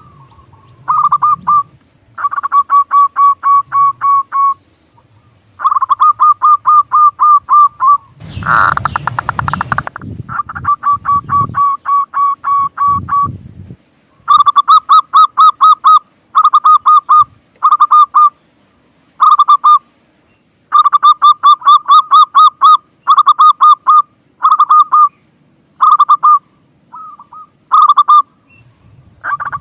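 Zebra dove (perkutut) cooing in repeated phrases: short runs of quick staccato notes, one after another with brief pauses. About eight seconds in there is a short burst of rustling noise.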